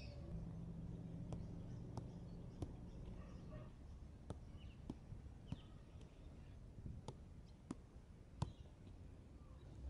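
Soft thumps of a football being tapped and juggled on the feet, one roughly every half second to second, the loudest near the end, over a quiet outdoor background with a faint low hum in the first few seconds.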